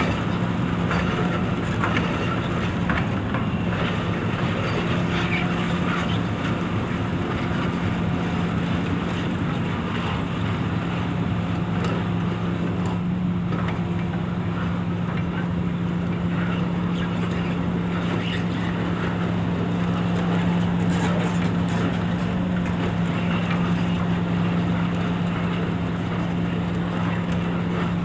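Hitachi EX355 demolition excavator's diesel engine running at a steady speed, with scattered metallic clanks from the machine.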